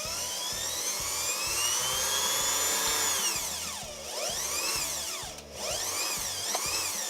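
Small sewing-machine electric motor running under the foot pedal speed controller, its whine rising as the pedal is pressed, dropping sharply about three to four seconds in, then rising and falling several more times. The repaired pedal is regulating the motor's speed smoothly rather than acting as a plain on/off switch.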